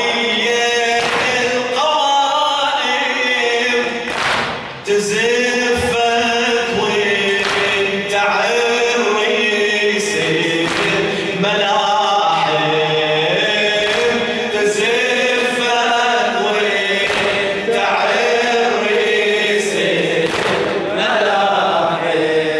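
Male radood chanting an Arabic latmiya lament into a microphone, with a group of voices singing along, over a slow, regular beat of sharp strikes about once a second.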